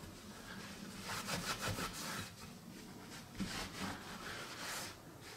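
Cotton rag wiping over the painted surface of a freshly wet-sanded metal sign: faint, repeated soft rubbing strokes.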